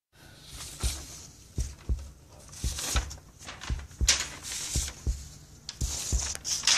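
Heartbeat sound effect: paired low thumps about once a second, with the rustle and swish of paper sheets being flipped through and tossed aside several times.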